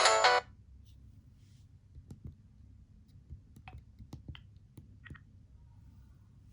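A Motorola RAZR V8 ringtone cuts off about half a second in. It is followed by an irregular run of light clicks, the phone's keypad buttons being pressed to move on to the next ringtone.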